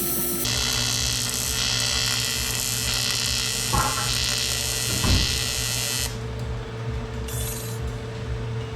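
AC TIG welding arc on aluminium buzzing steadily, with a low hum under it, then stopping suddenly about six seconds in so that only the hum is left. Two short knocks come about four and five seconds in.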